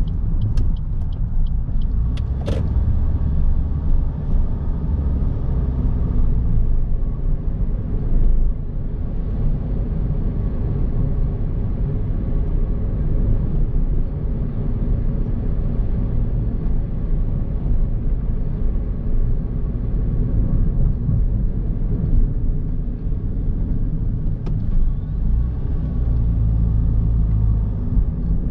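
A car being driven, heard as a steady low rumble of engine and road noise. A few sharp clicks come in the first few seconds.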